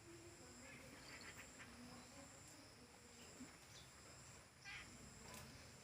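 Faint outdoor ambience: a steady high insect buzz with a few short chirps.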